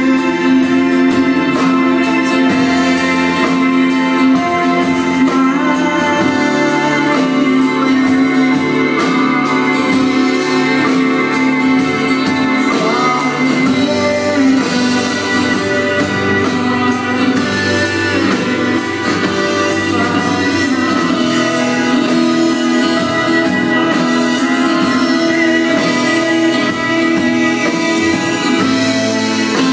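Live indie-rock band music: a slow song carried by acoustic guitar and keyboards, with long held chords and even loudness throughout.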